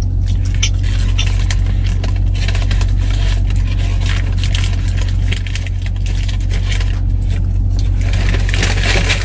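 Paper fast-food bag rustling and crinkling as hands dig in it for fries, with scattered crackles, over a steady low hum in the car's cabin.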